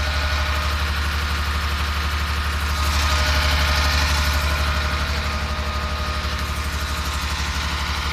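FAW 28-380 truck's diesel engine idling steadily, with a deep, fast, even pulsing. It grows a little louder about three seconds in.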